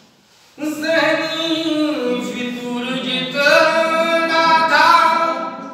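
A solo voice singing a verse unaccompanied, in long held notes that bend slowly in pitch, starting about half a second in.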